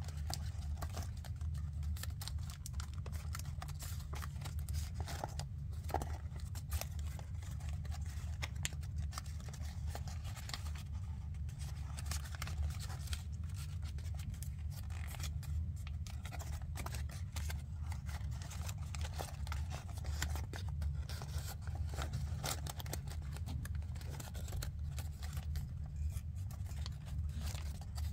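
Paper crinkling and creasing as fingers fold and press a many-layered paper origami model: a continual run of small, irregular crackles and rustles over a steady low hum.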